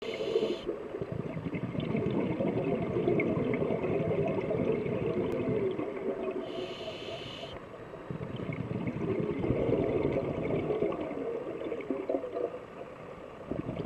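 Underwater sound of a scuba diver breathing through a regulator. A short hiss of inhalation comes at the start and again about halfway through, and a low, continuous bubbling of exhaled air fills the time between.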